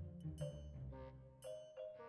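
Background music: a few struck, ringing notes over a low held bass.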